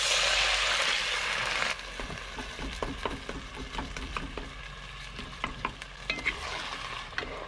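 Chicken stock poured from a mug into a hot pot of frying curry paste and sweet potato, a loud hiss that stops abruptly after under two seconds. Then a wooden spoon stirs the pot, with scrapes and taps against the speckled non-stick pot over a quieter sizzle.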